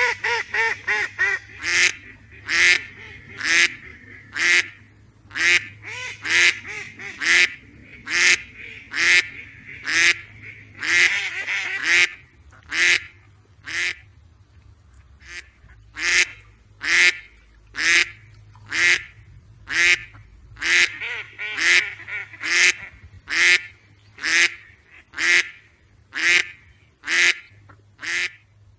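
Duck quacking over and over, mostly about one quack a second, with quick runs of several quacks near the start and again a few seconds in.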